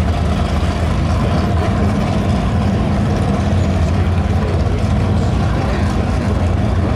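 Two V8 muscle cars, a Dodge Charger and a Ford Mustang GT, idling side by side in a steady low rumble, with no revving.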